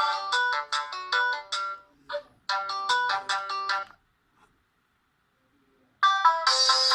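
Polyphonic ringtone melodies from a Pirelli DP-L10 phone's Winbond W56940 40-voice sound chip. One tune ends about four seconds in, and after a two-second pause the next ringtone begins.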